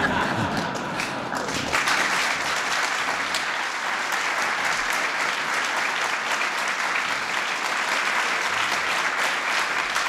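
Audience applauding, the clapping thickening about a second and a half in and then holding steady.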